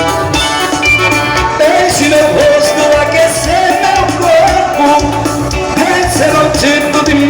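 Live band music with a steady beat, in a Latin-American style; a voice starts singing over it about two seconds in.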